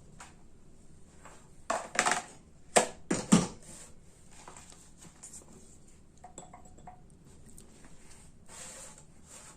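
A few sharp knocks and clatter of kitchen utensils and dishes being handled, bunched between about two and three and a half seconds in, with fainter taps later.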